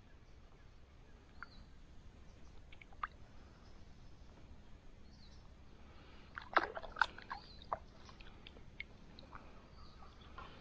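Quiet outdoor background, broken by a short flurry of sharp clicks and light knocks about two-thirds of the way through.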